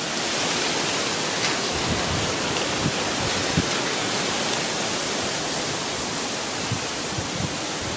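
Strong wind of a summer storm: a steady, even rushing noise, with a few faint low thumps.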